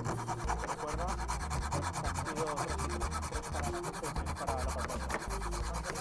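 Small coping saw with a fine blade cutting through a bamboo cane, a steady rasp of quick back-and-forth strokes.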